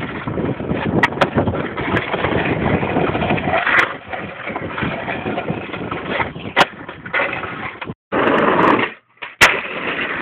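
Skateboard wheels rolling on rough asphalt, a continuous gritty rumble, with a few sharp clacks of the board, the loudest near the end. The sound drops out briefly twice near the end.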